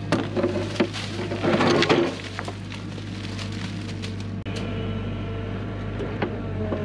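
Hyundai HX85A excavator's diesel engine running steadily while its bucket scrapes and cracks through rock, with the loudest knocks and grinding in the first two seconds.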